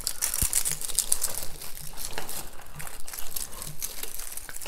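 Continuous crinkling and rustling of artificial pine and berry picks being handled and shaped against a grapevine wreath.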